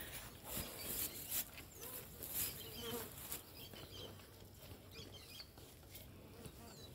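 Flies buzzing around a cow and her nursing calf. A few brief rustling noises come in the first three seconds or so.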